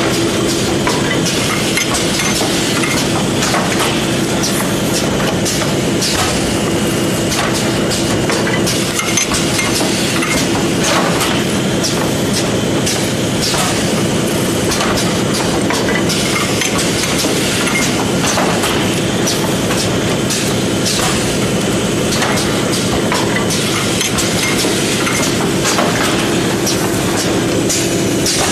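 Paper overwrapping machine running: a steady mechanical hum with continual clattering and clicking from its moving parts as reams of A4 paper are fed through and wrapped.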